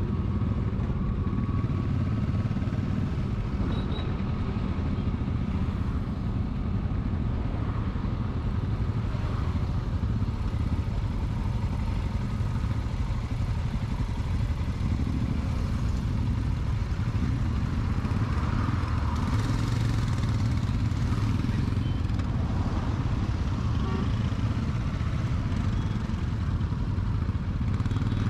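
Kawasaki Versys 650 parallel-twin motorcycle running steadily on the road, recorded on a GoPro without an external mic. The sound is a constant, low-heavy rush with no breaks.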